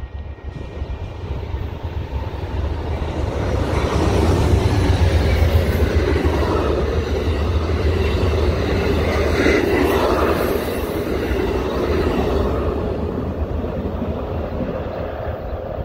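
Amtrak passenger train of Superliner bilevel cars passing at speed, its wheels running on the rails with a rush of air. It builds over the first few seconds, is loudest in the middle, then fades as the train draws away.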